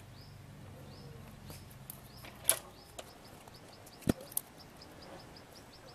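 A few sharp clicks and taps from handling small electronic parts on a bench, the loudest about halfway through and a quick pair near the end. Behind them, short high chirps repeat a few times a second, quicker in the second half.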